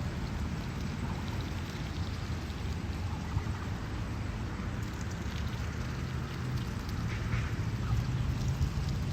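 Canada geese and goslings pecking at corn kernels: a dense, steady patter of small clicks over a low rumble.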